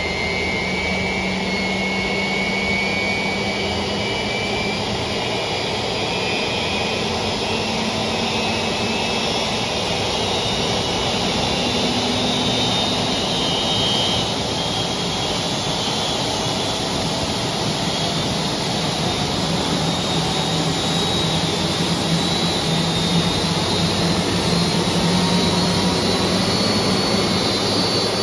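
Pratt & Whitney PW4168A turbofan on an Airbus A330 running on the ground during its start, cowls open: a steady jet roar with faint whines that slowly rise in pitch as the engine spools up.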